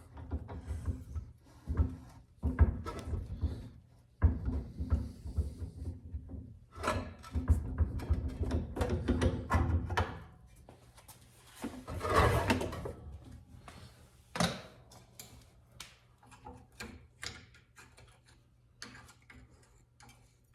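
Irregular clanks, knocks and scraping of metal parts being worked by hand on a benchtop drill press while the stuck quill is being freed. The handling comes in uneven bursts, busiest about halfway through.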